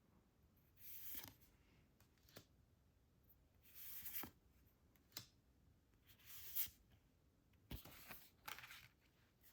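Trading cards and their pack packaging being handled: about five short, soft rustles with a few light taps in between.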